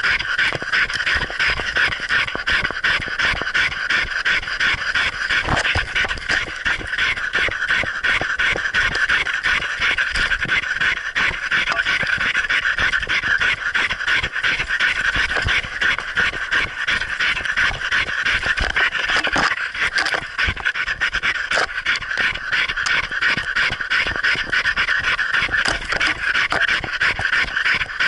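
Dog panting rapidly and steadily right at the microphone, the camera strapped to its own muzzle, with a few scattered knocks.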